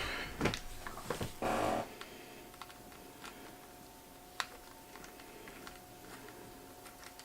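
Small clicks and clatter of a screwdriver, screws and the laptop's old hard drive being handled, with a short scraping rustle about a second and a half in. Then it goes mostly quiet, with a few faint ticks and one sharp click midway.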